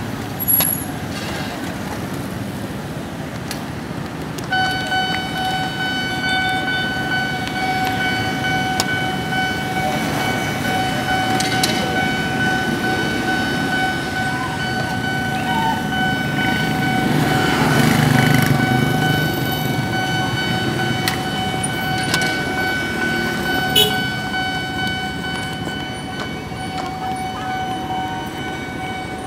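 A horn sounding one steady, unbroken note, starting about four and a half seconds in and held to the end, over the rumble of a passing vehicle that swells in the middle.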